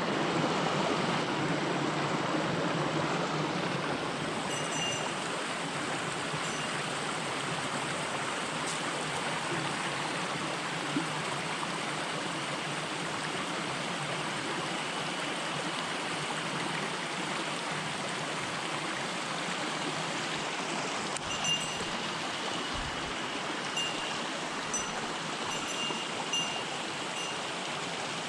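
Small mountain stream running steadily over rocks, a continuous rush of water. A few short high chirps come through it, once about five seconds in and several times near the end.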